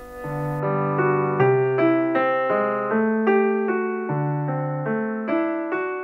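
Background solo piano music, single notes and chords struck and left to ring, growing louder over the first second.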